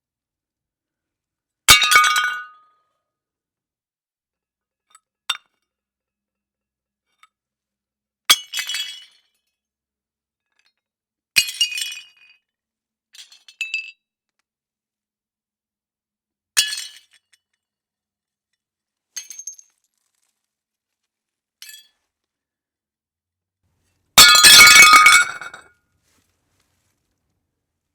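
Ceramic plates smashing one at a time with bright clattering crashes, each followed by silence. Smaller clinks of shards come in between. The longest and loudest smash comes near the end.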